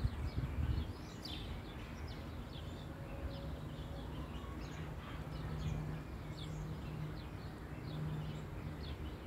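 Small birds chirping, a steady scatter of short high chirps over a low rumble.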